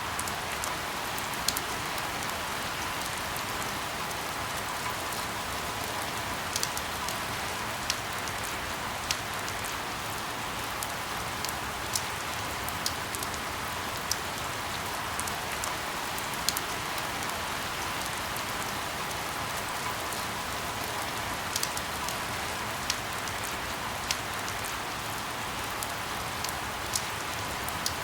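Steady rain falling, an even hiss with scattered sharp ticks, about one every second or two.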